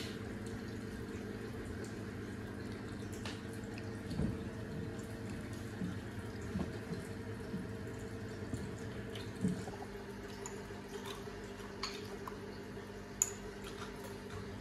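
Quiet sounds of a family meal: a few soft eating noises and light clicks of tableware, over a steady background hum.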